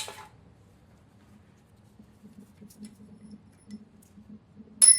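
Faint shuffling of handling in a workshop, then near the end a loud metallic clink as a metal part or tool is set down, ringing briefly with a few clear tones.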